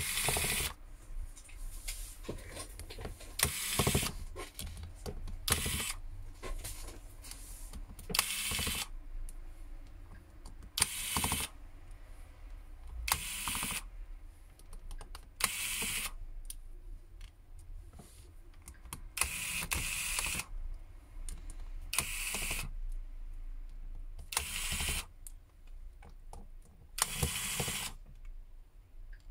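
A screwdriver backing small screws out of a smartphone's midframe: a short noisy burst every two to three seconds, with light clicks between.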